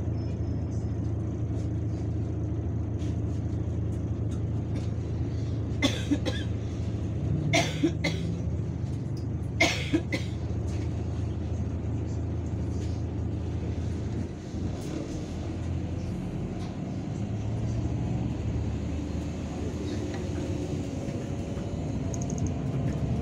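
Inside an Irisbus Citelis 12M city bus: the engine hums steadily while the bus stands still. A few short sharp noises come between about six and ten seconds in. About two-thirds of the way through, the engine note changes and rises as the bus moves off.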